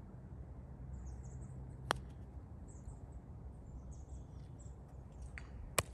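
A putter striking a golf ball once: a short, sharp click about two seconds in. A second, louder click comes near the end, over faint bird chirping and low outdoor background noise.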